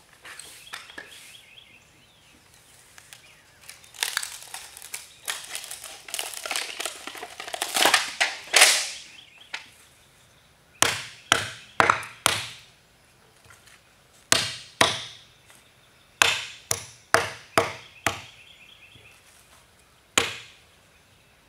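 A hammer striking a hardened disk of matsuyani, a brittle pine-rosin and plaster pitch, cracking it into chunks: about a dozen sharp blows in quick clusters over the second half. Before that, several seconds of crinkling and scraping.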